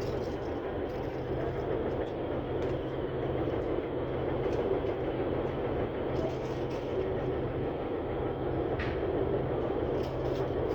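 Steady mechanical rumble with a low hum, like machinery or an engine running, with a few faint clicks along the way.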